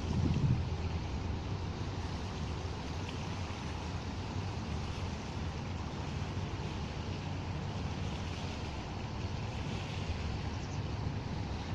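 Wind and small waves lapping on a stony shore, with a steady low rumble and a brief stronger gust about half a second in.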